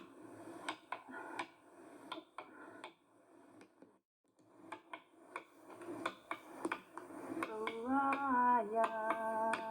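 Background music: a finger-snapping beat with a hummed melody, breaking off briefly near four seconds in.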